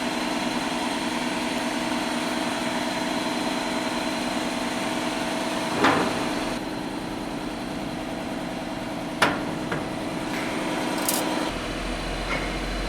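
Steady machine hum with a few steady tones, broken by three sharp clicks at about six, nine and eleven seconds in. A lower drone comes in near the end.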